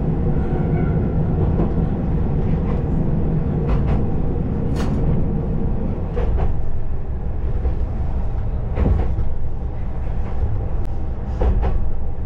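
KiHa 20-series diesel railcar running along the line, a steady rumble of engine and wheels with the engine drone easing off about halfway through. Scattered sharp clacks of the wheels over rail joints.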